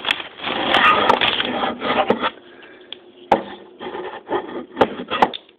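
Handling noise from paper and a Leatherman multitool: about two seconds of scratchy rustling and rubbing, then quieter, with a few sharp clicks in the second half.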